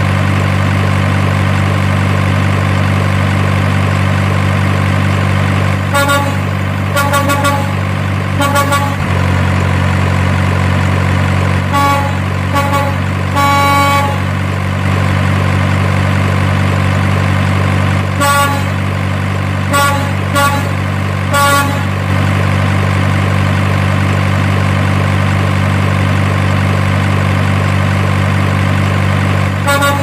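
Truck engine running steadily, with three bouts of short horn toots, about six, twelve and eighteen seconds in.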